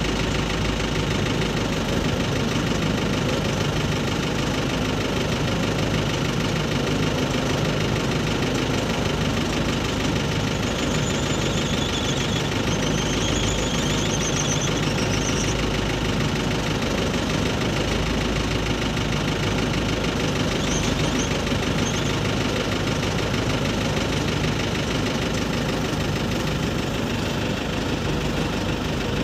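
Airbus A320 jet engines running at low taxi thrust, a steady roar with a faint high whine that wavers about halfway through.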